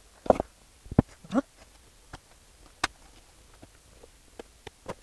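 Silicone soap mold being handled and flexed on a table while a block of freshly set soap is worked out of it. There are a few scattered knocks and a couple of short squeaks.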